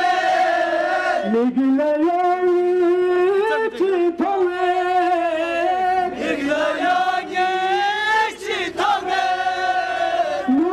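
Men chanting a Shia mourning elegy (noha) together, a lead voice on a hand microphone with the surrounding crowd singing along, in long drawn-out phrases of about two seconds each.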